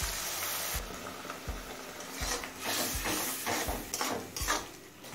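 Water hitting hot oil and spices in a metal kadai sizzles briefly, then a metal spatula scrapes and stirs the masala against the pan in a run of quick strokes.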